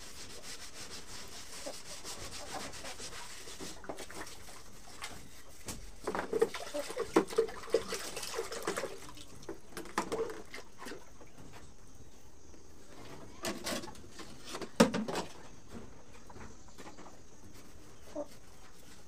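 Dishes being hand-washed: utensils scrubbed by hand, with a steady rubbing sound. Dishes knock and clatter against each other in short spells, loudest about a third of the way in and again about three-quarters through.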